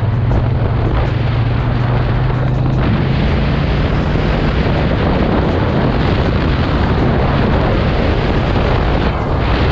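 Triumph Bonneville T120's 1200 cc parallel-twin engine running steadily at road speed, with wind rushing over the microphone. The engine note dips briefly near the end.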